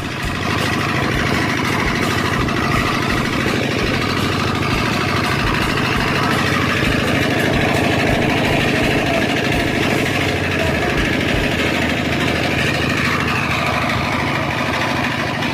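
Diesel engine running steadily while driving a dynamo to generate electricity.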